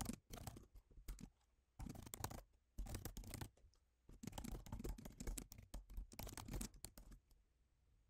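Faint computer keyboard typing in quick bursts of keystrokes separated by short pauses; it stops near the end.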